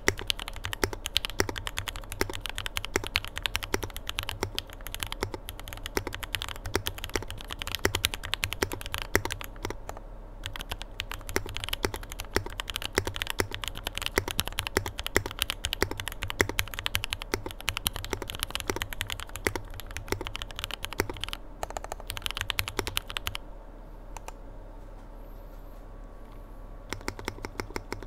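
Typing on a Think6.5 v2 gasket-mount mechanical keyboard with lubed, filmed Marshmallow switches on an FR4 plate and CMK Modo 2 keycaps: a continuous stream of keystrokes. The typing stops for a few seconds near the end, then resumes as a rapid, evenly spaced run of keystrokes.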